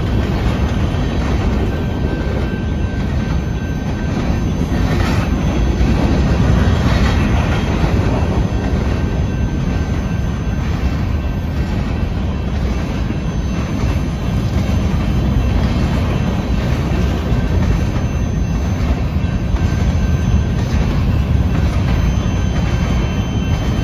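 Freight train of loaded covered hopper cars rolling past: a steady rumble of steel wheels on rail with a clickety-clack of wheels passing over rail joints.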